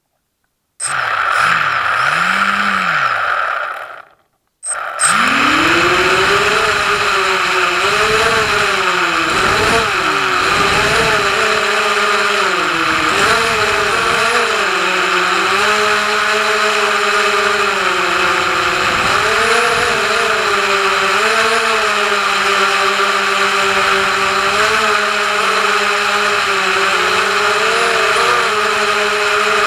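FPV quadcopter's motors and propellers buzzing, the pitch rising and falling with the throttle. It starts about a second in, cuts out briefly near four seconds, then runs on without a break.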